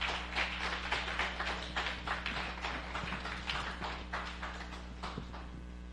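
Scattered clapping from a small congregation, many uneven claps that thin out and stop near the end, over a steady mains hum from the sound system.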